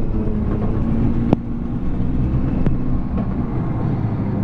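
Engine of a trail-grooming vehicle running steadily at low speed, with a sharp click a little past a second in.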